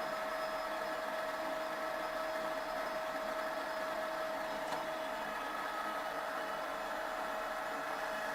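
TV-320 lathe running, its change-gear train ringing with a steady high tone over the machine's hum: the gears are running dry, before lubrication.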